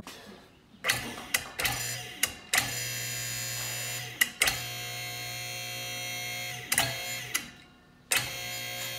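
Electric hydraulic pump motor of a Central Hydraulics 6000 lb scissor lift running in spurts as it raises a full-size pickup. It runs as a steady hum, switched on and off repeatedly: a few short bursts at first, then two longer runs of about two seconds each, a brief stop near the end, and it starts again. Each start comes with a click.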